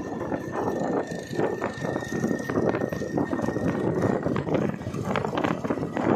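Ride noise from a moving motorcycle: wind buffeting the microphone in irregular gusts over the running engine and road. A thin high tone fades out about two and a half seconds in.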